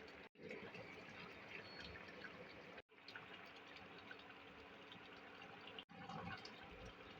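Faint bubbling of curry simmering in a pot, with scattered small pops. The sound cuts out for a moment three times.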